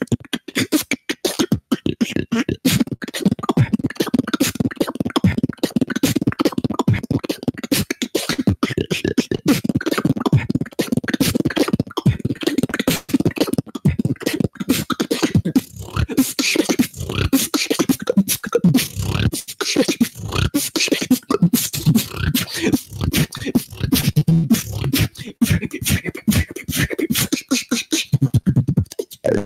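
Solo beatboxing into a handheld microphone: a fast, dense run of mouth-made percussive hits and hissing sounds over low bass tones, without a break.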